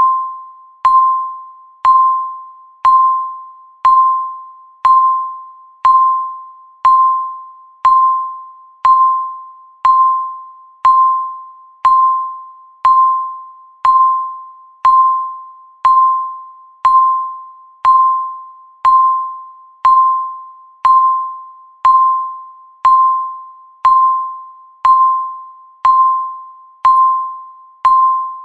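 Countdown timer beeping once a second: a short electronic tone that fades after each strike, repeating evenly.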